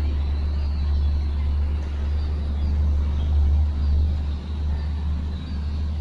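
A steady low rumble that swells and dips, with a few faint high chirps above it.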